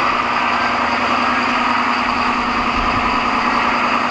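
Ford F-750's 6.7-litre Power Stroke V8 turbodiesel running steadily on high idle just after a cold start at about minus 35 degrees, with the turbo spooling. The oil is still at about minus 22 °C.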